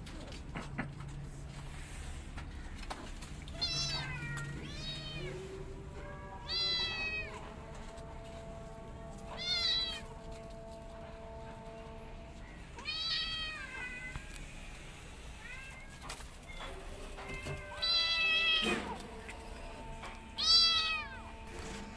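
Kittens meowing, about seven high-pitched meows spaced a few seconds apart, each rising then falling in pitch; the loudest comes near the end.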